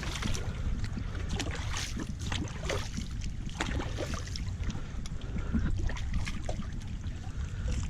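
Wind buffeting the microphone with a steady low rumble, and river water lapping with small, irregular splashes.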